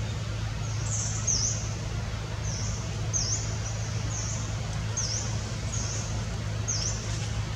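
A bird repeats a short, very high two-note chirp, a level note followed by a dipping one, about every two seconds, over a steady low hum.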